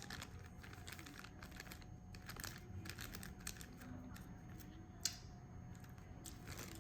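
Faint crinkling and clicking of plastic takeout food packaging being handled, with one sharper click about five seconds in.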